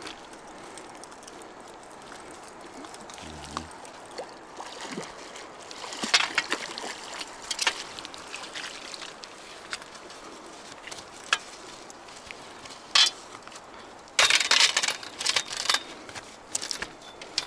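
Water splashing as a hooked carp is drawn into a landing net in the shallows, with short sharp splashes and clatters; near the end a dense burst of thrashing and rattling as the netted fish is handled on the stony bank.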